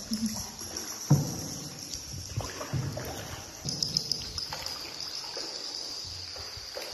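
Paddle strokes and water sloshing around a small outrigger boat, with a few irregular knocks on the hull, the sharpest about a second in. A steady high hiss runs underneath.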